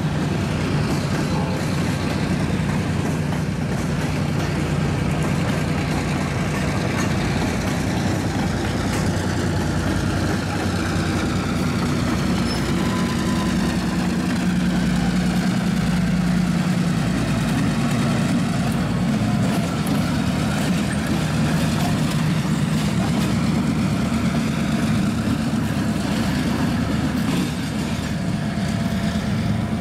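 Freight train rolling past: a diesel switcher locomotive's engine running steadily, loudest near the middle, over the rumble of tank cars and hoppers on the rails.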